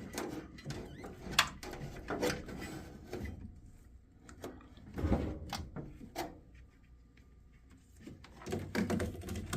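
Handling clatter: scattered clicks, knocks and rustling of tools or equipment being moved about, with a quiet lull in the second half and a cluster of knocks near the end.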